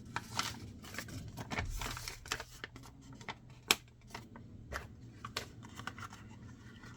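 A small paper instruction manual being handled and unfolded: irregular rustles and crinkles of paper, with one sharp click a little under four seconds in.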